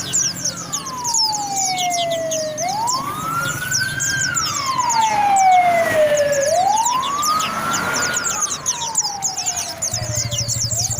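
An emergency-vehicle siren wailing, sweeping up quickly and falling slowly about every four seconds. Small birds keep up rapid high chirping underneath, likely the white-eyes (pleci) the video is about.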